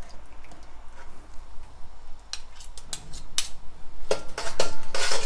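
A metal spoon clinking and scraping against a metal kadai as ghee is stirred into sugar syrup. There are a few scattered clicks about halfway through, then busier scraping and clinking near the end.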